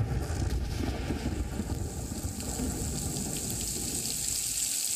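Heavy rain pouring down: a steady, dense hiss with a low rumble underneath.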